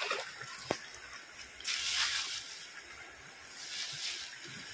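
Fast-flowing river running through small rapids, a steady hiss of moving water, with a louder surge of water noise about two seconds in and a single sharp click just before it.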